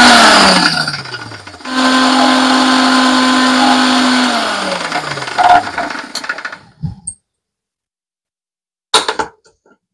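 Indian mixer grinder (mixie) grinding curry leaf powder with water into chutney in short pulses. The motor winds down, starts again about two seconds in, runs steadily for a couple of seconds, then slows and stops. A few short knocks follow near the end.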